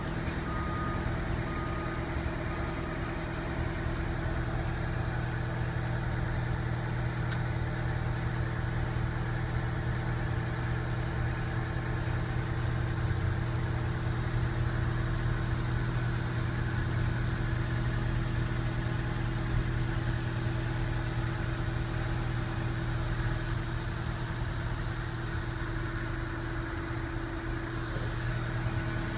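The 575 hp Detroit Diesel engine of a 1997 Oshkosh T-3000 ARFF crash truck idling steadily, heard from inside the cab. A repeating beep sounds over it for the first few seconds.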